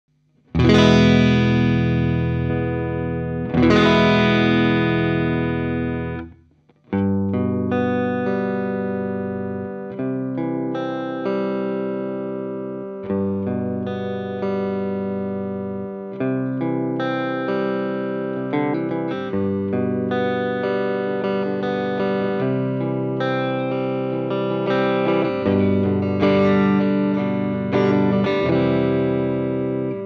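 Stratocaster-style electric guitar played through a Maxon OD-808 overdrive pedal, switched on, giving an overdriven tone. Two strummed chords ring out, the sound breaks off briefly about six seconds in, then a steady rhythmic riff of picked chords and single notes follows.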